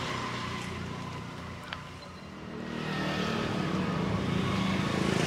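A motor vehicle's engine passing on the road, a steady low hum that grows louder from about halfway through as it approaches.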